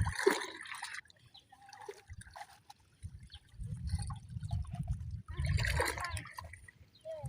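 Water splashing and trickling in two bursts, at the start and again about two-thirds of the way in, over a low rumble on the microphone.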